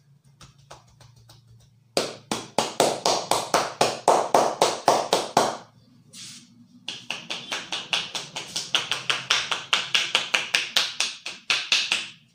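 A barber's hands striking the top of a wet head in rapid rhythmic taps during an Indian head massage: a run of quick strikes about seven a second for three and a half seconds, a short pause, then a second, crisper run of about five seconds.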